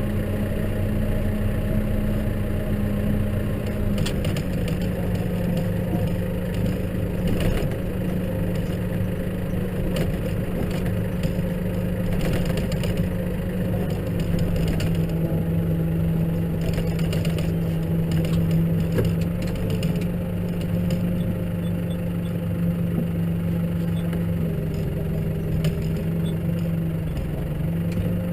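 Case tractor's diesel engine running steadily, its pitch dropping slightly a few seconds in and again around halfway, with scattered clicks and knocks.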